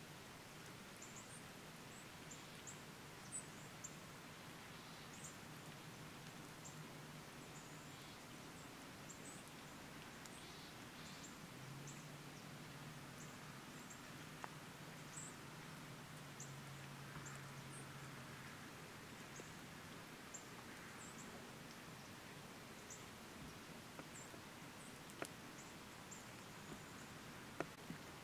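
Very quiet woodland ambience: faint, short, high chirps from small birds scattered throughout over a soft hiss, with a faint low hum through the middle and a couple of light clicks near the end.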